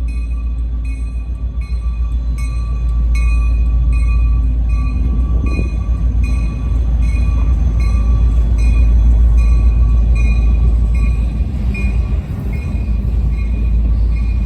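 Diesel freight train running past with a heavy low rumble, while a bell dings steadily about once every 0.7 seconds.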